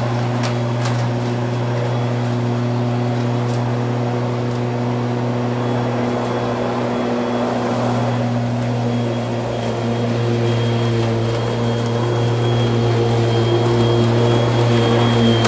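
Lawn mower engine running steadily at a constant speed, growing a little louder in the last few seconds.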